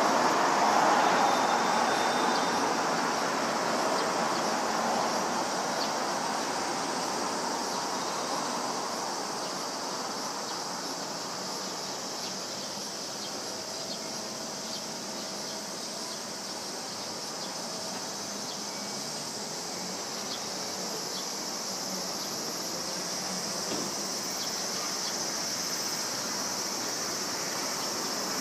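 A steady high drone of summer insects, with a broad distant rush that is loudest at the start and fades away over the first ten seconds.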